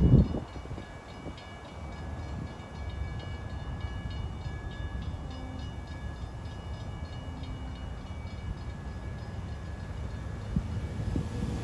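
Railroad grade-crossing bell ringing in a steady repeated rhythm while a passing Amtrak passenger train rumbles away as its last car clears the crossing. A short loud thump at the very start.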